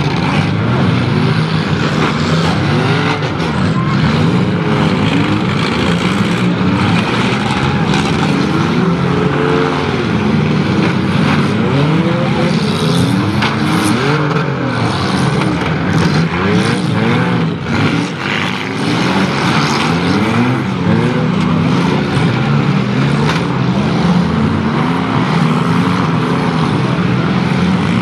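Many demolition derby cars' engines revving at once, their notes rising and falling and overlapping, with scattered crunching impacts as the cars ram one another.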